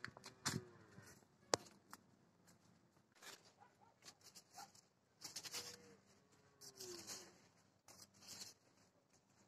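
Faint, scattered rustling and scraping of cucumber leaves brushing against the camera and clothing as someone walks between the vine rows, with a few sharp clicks.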